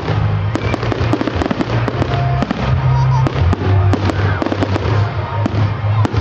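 Fireworks display: a dense run of bangs and crackles from bursting aerial shells, several a second, over music with a heavy bass line.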